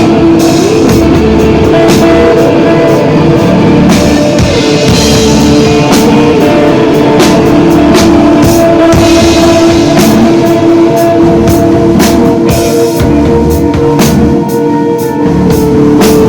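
Instrumental desert rock played live by a band: electric guitar holding long, sustained notes over a drum kit keeping a steady beat with frequent cymbal hits.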